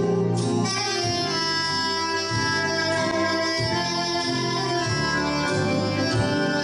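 Live fusion ensemble music mixing Korean traditional and Western instruments: a sustained wind or bowed melody held over a bass line that moves from note to note.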